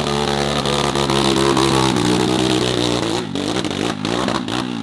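Dirt bike engine at high revs under hard load, climbing a steep slope. About three seconds in, the note breaks up into short stutters as the throttle is chopped.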